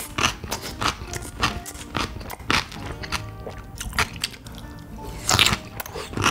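Crisp crunching and chewing of stuffed cucumber kimchi (oi-sobagi), in a run of sharp crunches, the loudest about five seconds in, over background music.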